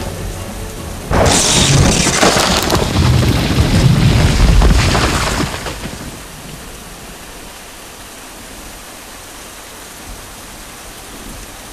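Thunderstorm sound effect: a sharp thunder crack about a second in that rumbles on for a few seconds and dies away, leaving steady rain.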